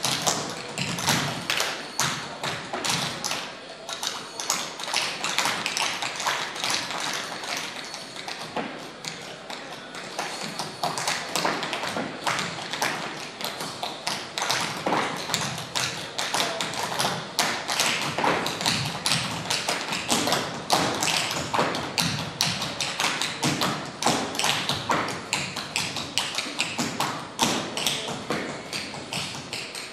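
Dense, irregular tapping and clicking, many taps a second, some sharper and louder than others, with no break.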